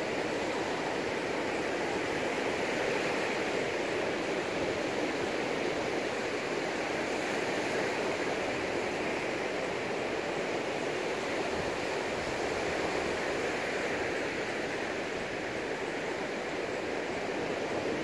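Sea surf breaking and washing up a sandy beach: a steady rushing noise that swells and eases gently.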